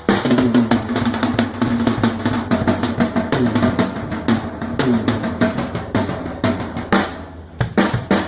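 Drums played loudly in a fast run of hits, offered as an example of a loud sound.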